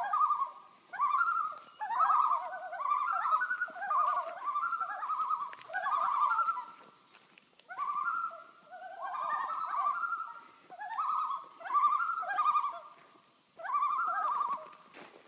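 Common loons giving their quavering tremolo calls, one phrase after another, often two calls at different pitches overlapping, with short breaks about halfway through and near the end.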